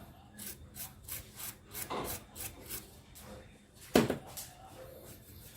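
Quick scraping strokes, about four a second, then a single sharp knock about four seconds in, the loudest sound.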